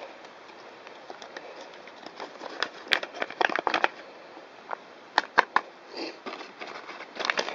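Crinkling and crackling of an opened instant-soup packet being handled and emptied, in bunches of sharp crackles with short pauses between.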